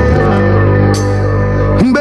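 Reggae music played loud over a sound system: a heavy, held bass note under instrumental backing, with a short swooping sound near the end.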